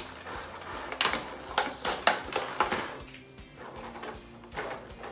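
Clear plastic blister packaging being handled, giving a run of sharp crackles and clicks between about one and three seconds in, over steady background music.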